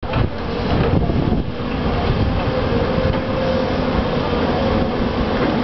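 Volvo crawler excavators digging: diesel engines running under load with a steady hydraulic whine over a low rumble.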